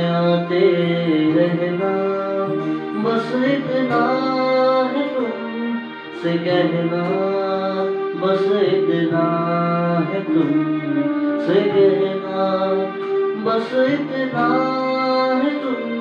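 A man singing a Hindi song, melodic lines held and bending in pitch, over an instrumental backing track with sustained notes.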